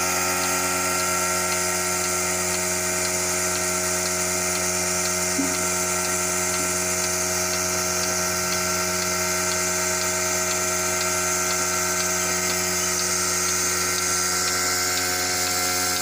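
Milking machine running steadily as its cups are put on a cow: a constant droning hum with a faint, regular ticking about twice a second, just before the milk starts to flow.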